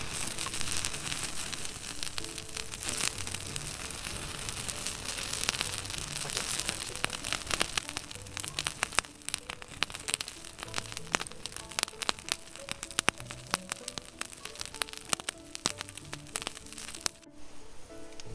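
Pacific saury grilling over a wood fire: a steady sizzle with many sharp crackling pops from the fire and the dripping fat, over quiet background music. The crackling cuts off suddenly near the end.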